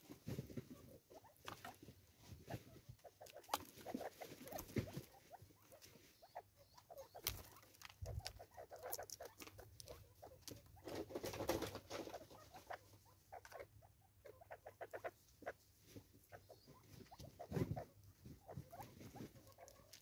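Francolins pecking seed from a plastic bottle feeder and stepping on a wooden stump: light, irregular taps and scratches, coming in quick runs of pecks a few times.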